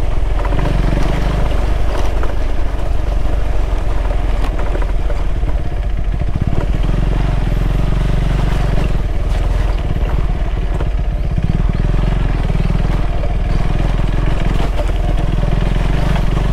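KTM 390 Adventure's single-cylinder engine running under way on a dirt trail, its note shifting a little with the throttle, with many short knocks and rattles from the rough ground.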